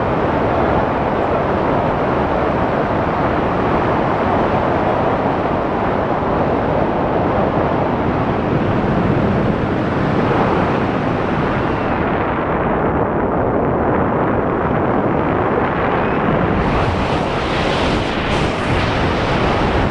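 Wind blasting over a wrist-mounted action camera's microphone in a tandem skydive freefall, a loud steady rush. It turns duller about twelve seconds in, then harsher again with a few crackles near the end.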